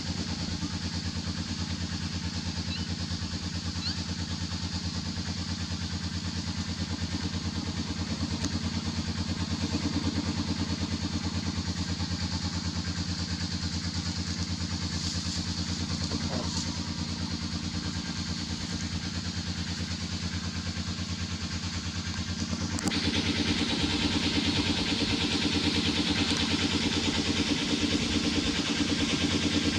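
A small engine running steadily, with an even low pulse. It gets somewhat louder about 23 seconds in.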